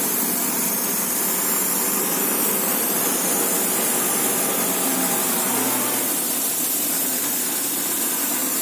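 A steady, even hiss that holds at the same level throughout.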